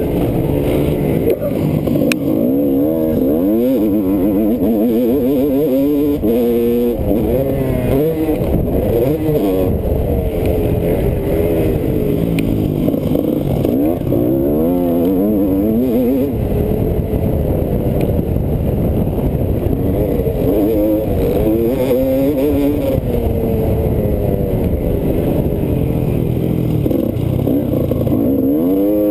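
Motocross dirt bike engine under race load, its pitch climbing and dropping again every second or two as the rider opens and closes the throttle around the track, heard from on the bike.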